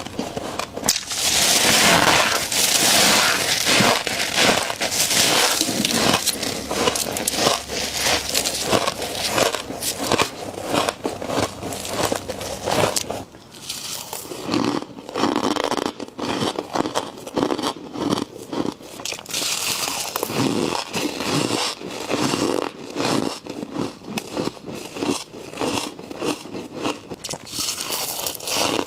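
Close-up crunching and crackling of humidifier frost being scraped loose and chewed: a dense, unbroken run of tiny crackles and crunches, with a change in the sound about thirteen seconds in.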